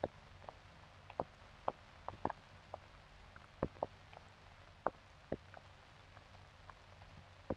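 Faint crackle of an old film print's soundtrack: a low steady hiss with about a dozen irregular clicks and pops.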